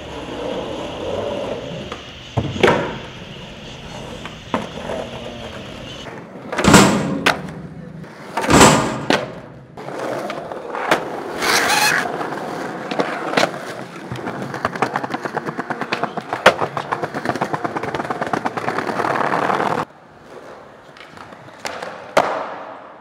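Skateboards rolling over pavement with a steady grinding rumble of the wheels. Several sharp cracks from tails popping and decks landing break the rumble, and the background changes abruptly between shots.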